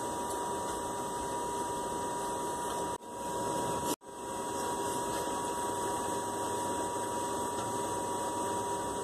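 Steady background hiss with a constant high hum, dropping out briefly about three and then four seconds in.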